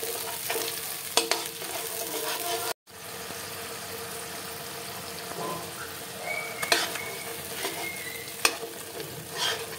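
Ground spice paste sizzling in oil in a kadhai over a low flame, being fried until it releases its oil. A spoon scrapes and knocks against the pan now and then as the paste is stirred. The sound drops out for a moment a little before three seconds in.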